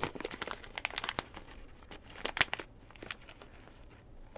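Foil blind-bag pouch being crinkled and torn open by hand: a dense run of sharp crackles for about two and a half seconds, thinning to scattered crackles near the end.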